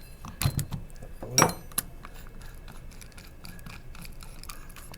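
Small metal clinks and taps of hand tools and power steering pump parts being handled during reassembly, with one louder metallic clank that rings briefly about a second and a half in.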